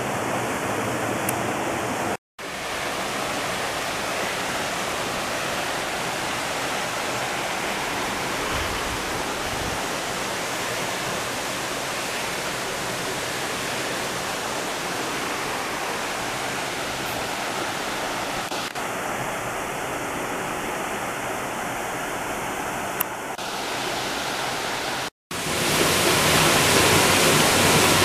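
Cockermouth River water rushing steadily through a granite gorge. The sound drops out abruptly twice, and for the last few seconds it is louder, as water pours over a small cascade between boulders.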